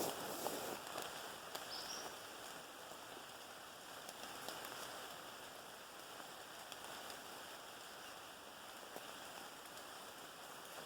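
Steady rain falling through the woods: an even hiss with scattered single-drop ticks, and a short rustle near the start.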